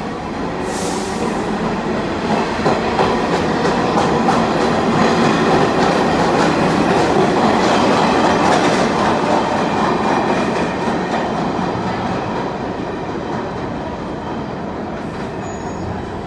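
R46 subway train pulling out of the station, its cars rumbling and wheels clacking over the rail joints. A brief hiss comes about a second in. The sound builds to its loudest as the last cars pass, then fades as the train recedes down the tunnel.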